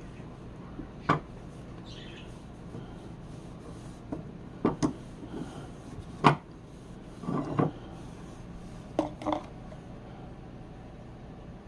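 Sharp clicks and knocks of metal tools being handled, about eight in all, scattered and irregular, with a short rattling cluster in the middle, over a steady hiss.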